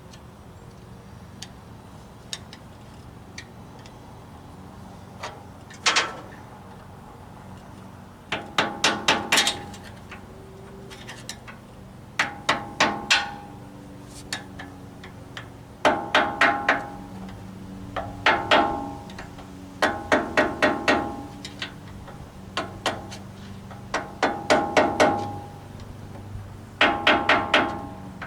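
A hammer tapping on metal parts of a skid steer's hydraulic cylinder in bursts of four or five quick ringing strikes, repeated every two to four seconds, driving a part down into its groove.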